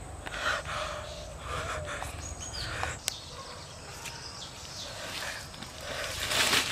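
A man breathing hard in pain, heavy breaths about once a second, over faint outdoor ambience.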